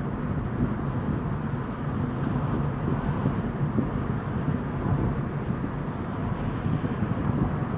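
Steady engine and tyre noise inside a moving car's cabin, a continuous low rumble with a light hiss.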